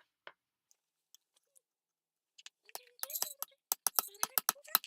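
Light, sharp metal taps and clicks on a thin tin can as holes are punched and popped out, a few scattered at first, then coming fast and irregular from about halfway in.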